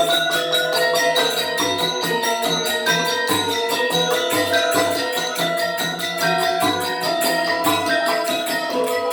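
Balinese gamelan of bronze metallophones playing legong dance accompaniment: fast interlocking strokes ringing over lower, slower notes, continuously.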